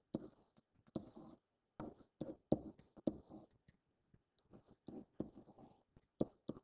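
Stylus writing digits on a tablet screen: a series of irregular taps and short scratchy strokes.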